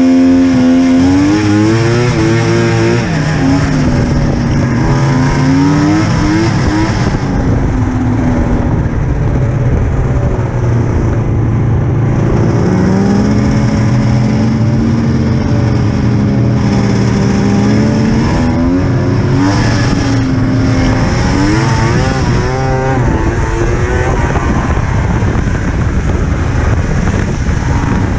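Polaris Ultra RMK snowmobile's three-cylinder two-stroke engine running while riding along a trail, its pitch rising and falling several times as the throttle changes.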